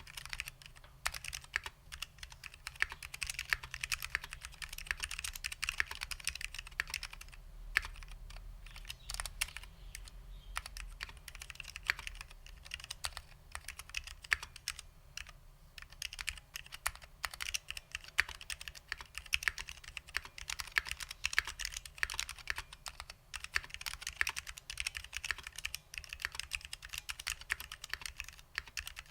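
Continuous fast typing on a custom 60% mechanical keyboard with lubed SKCL Green Alps switches, a dense run of sharp clicky keystrokes with a couple of short pauses.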